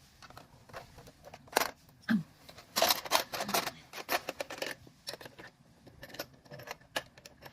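Irregular sharp clicks and clacks from a toy bird being fed and handled, with a few louder clacks in the middle.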